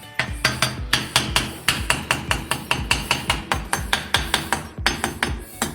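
Hammer tapping a freshly laid brick to bed it into place: a steady run of light, sharp blows, about three or four a second.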